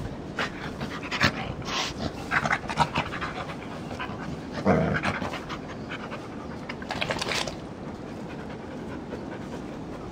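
Dog panting, with irregular rustling bursts as an English springer spaniel rolls on its back in the grass, and one louder short burst about halfway through.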